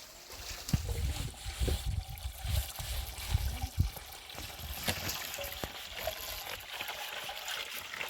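Water trickling, with scattered clicks and irregular low thuds during the first half.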